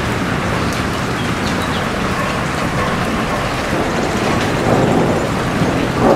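Heavy rain falling steadily, a dense even hiss and patter of drops. A low rumble swells up near the end.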